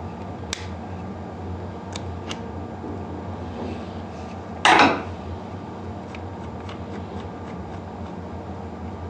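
Metal quick coupler and male quick connector clinking as they are handled: a few light ticks, one louder clack about halfway through, then a row of faint ticks.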